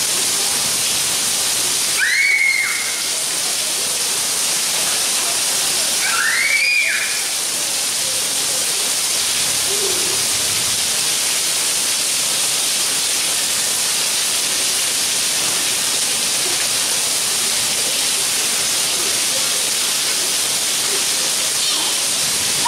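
Heavy rain falling steadily, an even hiss throughout. Two short high-pitched calls break through, about two seconds in and again about four seconds later.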